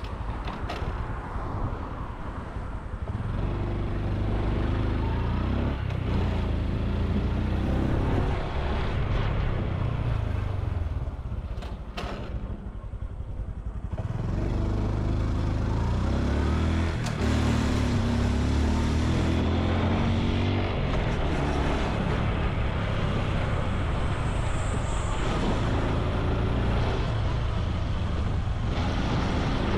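Honda Super Cub C125's single-cylinder four-stroke engine and exhaust running while riding, the pitch shifting with throttle and gear changes. It eases off and goes quieter around the middle, then picks up again.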